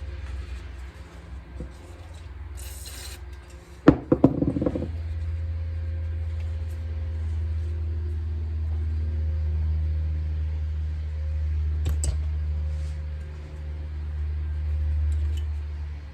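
A steady low machine hum with a short hiss, then a quick rattle of sharp metallic knocks about four seconds in. After the knocks the hum is louder and keeps going, with one more click later.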